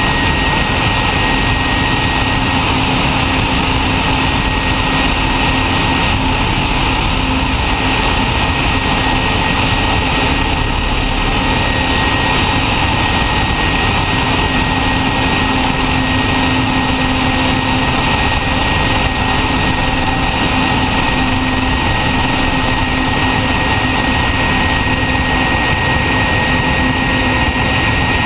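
The Antonov An-225 Mriya's six Progress D-18T turbofans running at takeoff thrust during the takeoff roll. It is a loud, unbroken jet noise with a steady high whine held throughout.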